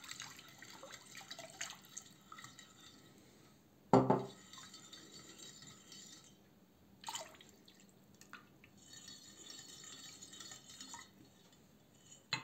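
Milk poured into melted margarine in a glass bowl and stirred with a small spiral wire whisk: faint liquid swishing and dripping with light clinks of the wire against the glass. A louder knock about four seconds in and a smaller one about three seconds later.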